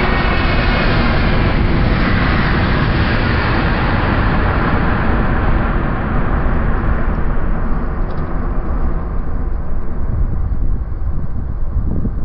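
Japan Airlines Boeing 737-800's CFM56-7B jet engines passing low overhead on final approach: a loud rush of engine noise with a whine. The hiss and whine fade from about halfway as the jet moves away toward the runway, leaving a low rumble.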